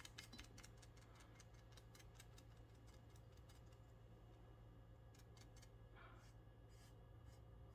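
Near silence: room tone with a low steady hum and faint, irregular ticking.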